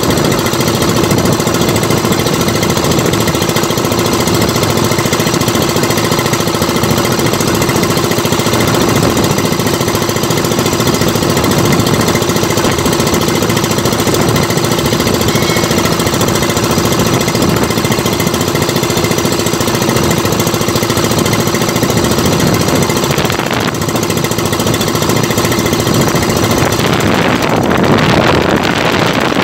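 Small outrigger fishing boat's engine running with a steady, fast, unbroken rattle. Near the end, wind buffeting the microphone comes in over it.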